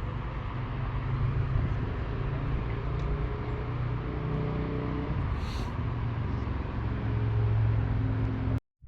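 Wind and tyre noise on a bicycle-mounted action camera while riding along a road, a steady low rumble. It cuts off abruptly near the end.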